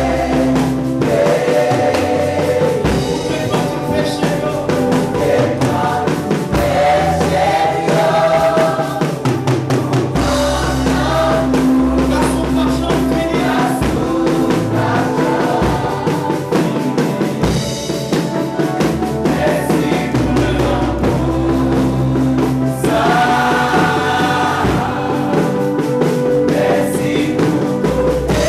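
Gospel music: a choir singing over a band with drums and bass.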